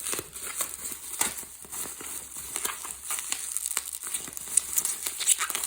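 Packing material crinkling and rustling in the hands as a boxed model horse is unwrapped, with a run of irregular crackles.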